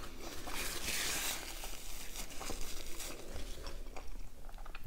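Paper napkin being crumpled in the hand: a short burst of crinkling about half a second to a second and a half in, followed by a few small crackles and clicks.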